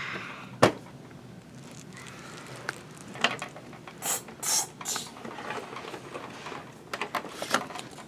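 Plastic toy kitchen pieces clicking and rattling as they are handled, with one sharp click about half a second in and three short hisses around four to five seconds in.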